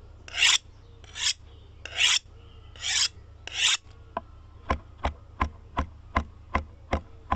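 Outro sound effect: five rasping strokes, each swelling and cutting off, followed by a steady run of sharp ticks about three a second, each with a low thump, over a low hum.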